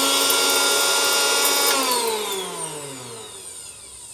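Electric mixer-grinder motor running at a steady high whine while grinding dry-roasted whole spices in its small steel jar. It is switched off a little under two seconds in and winds down, its pitch and loudness falling away.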